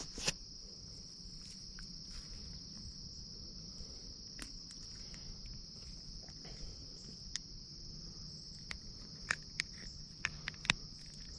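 Steady high-pitched chorus of insects. Over it come a few short, sharp clicks, most of them in the second half.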